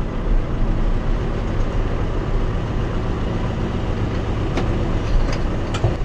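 John Deere 5085M tractor's diesel engine running steadily, heard from inside the closed cab as a low, even hum. A few light clicks near the end.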